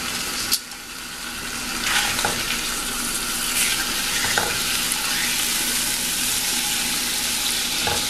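Split hot dogs sizzling in a nonstick frying pan, a steady hiss that grows louder about two seconds in. A few light clicks come from metal tongs touching the pan as the hot dogs are turned.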